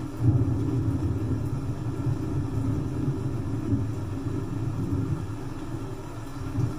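A long roll of thunder that breaks in sharply just after the start and keeps rumbling, over a steady hiss of rain.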